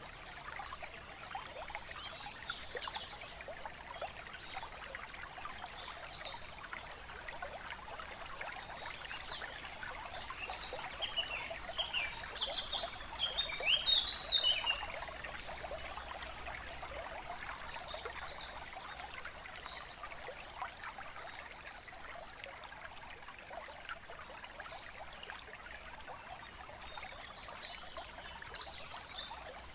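Running water with an even rushing sound and birds chirping now and then. A louder run of chirps builds a little before halfway and stops suddenly about halfway through.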